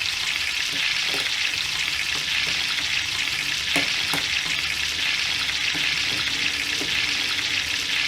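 Frying sound effect: a steady sizzling hiss of food frying in hot oil, standing in for the pretend cooking of potatoes. A few light clicks sound over it about a second in and around four seconds in.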